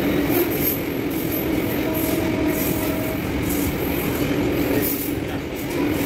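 BOXN freight wagons of a long goods train running past at high speed: a steady noise of steel wheels rolling on the rails.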